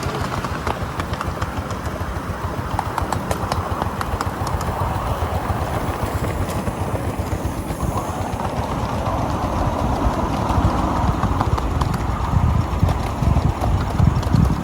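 Miniature railway train running on its track: wheels rumbling, with quick clicking over the rail joints, getting louder and heavier toward the end.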